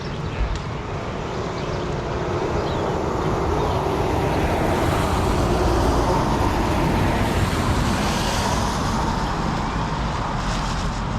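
A road vehicle passing: a noise that swells over a few seconds, peaks midway, then fades away.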